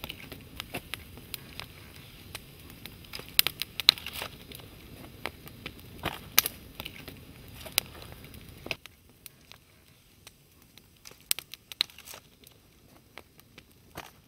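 Wood campfire crackling, with irregular sharp pops over a low steady rumble. About nine seconds in the rumble drops away and fainter, scattered pops continue.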